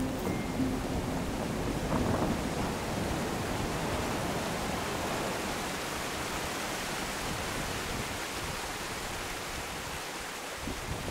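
Shallow stream rushing steadily, an even hiss of running water, with a brief knock near the end.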